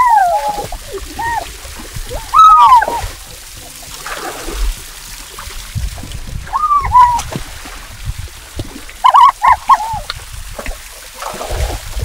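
Water splashing in bursts, mixed with short high squealing calls that rise and fall in pitch, several in quick succession about nine seconds in.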